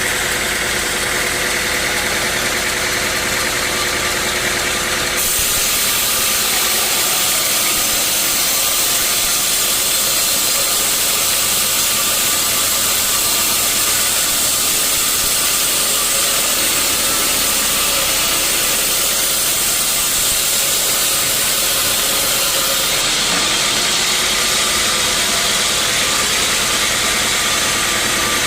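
Sawmill saw and its drive motor running steadily. From about five seconds in until near the end, a harsher high-pitched hiss rises over the hum as the blade cuts through a teak log.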